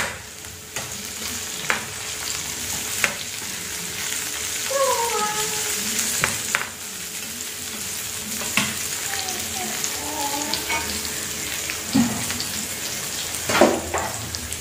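Chopped aromatics sizzling in hot oil in a stainless steel wok while a metal spatula stirs them. The spatula knocks against the pan several times.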